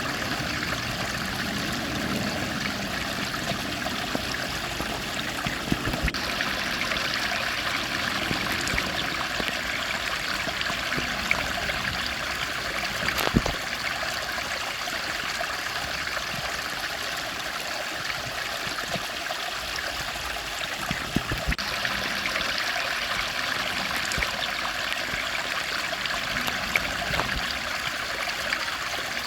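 Steady rushing of a stream of flowing water, with a few small clicks, the sharpest about 13 seconds in.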